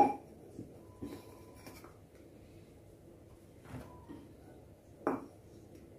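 Kitchenware handling as flour is scooped from a plastic tub into a drinking glass with a plastic scoop and tipped into a plastic bowl. There is a sharp knock at the very start, a few small clicks and faint scraping in the flour, and another sharp knock about five seconds in.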